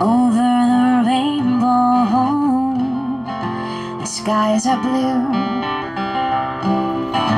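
A woman singing with a strummed acoustic guitar.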